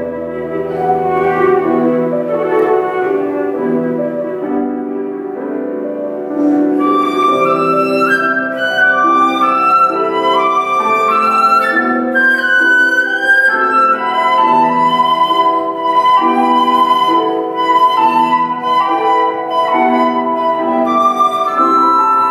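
Concert flute and grand piano playing a classical duo. The flute line starts low and soft, then climbs higher and louder about six seconds in, over a steady repeating figure in the piano.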